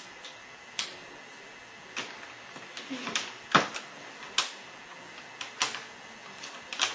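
Small plastic toy parts being handled, giving a dozen or so sharp, irregular clicks and taps, with a louder knock about three and a half seconds in.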